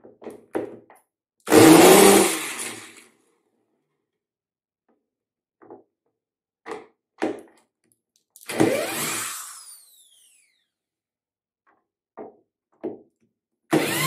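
Power drill-driver at screws on a washing machine tub: three short runs, each falling in pitch as it spins down, with light clicks and taps between.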